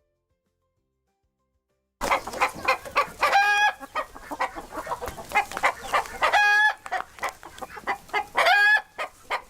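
Chickens clucking in a quick, busy run, broken by three longer drawn-out calls. It begins suddenly about two seconds in, after silence.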